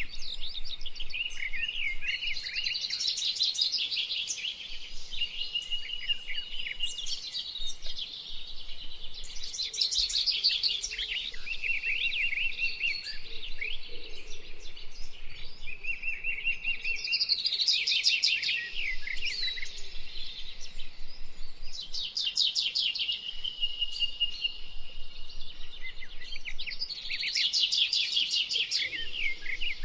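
Several birds singing at once: chirps, fast trills and held whistled notes, with bursts of rapid trilling every few seconds.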